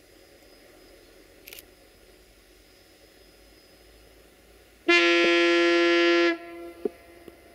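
A Duewag BR628 diesel multiple unit's horn sounds one loud blast of about a second and a half, two notes together, about five seconds in.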